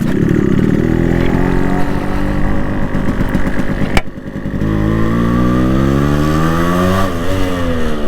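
Yamaha RX135's two-stroke single-cylinder engine pulling under way while riding. The note holds steady, a sharp click and brief drop about four seconds in, then it climbs in pitch, dips shortly near the end and climbs again, as with gear changes.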